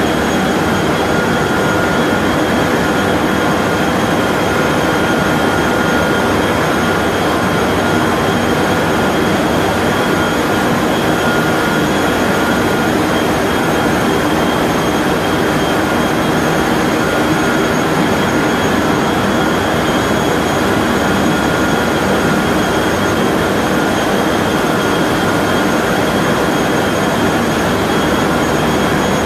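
Steady loud roar of a 3200 mm copy-paper making machine running, with several constant high whining tones over the noise.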